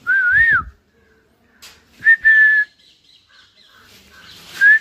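A person whistling three short notes: a wavering one at the start, a level one about two seconds in, and a short rising one near the end.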